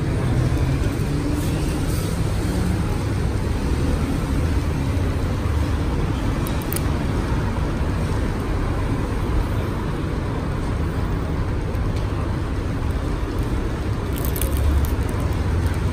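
Steady low rumble of road traffic, with faint crinkling of plastic film near the end.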